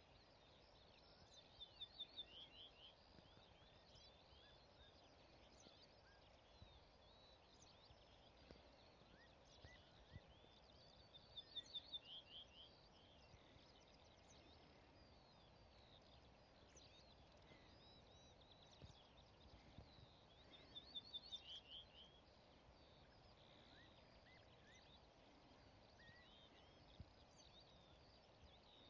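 Male ortolan bunting singing: a short song of quick repeated ringing notes, the last few a little lower, given about every nine seconds, with faint calls of other birds between songs.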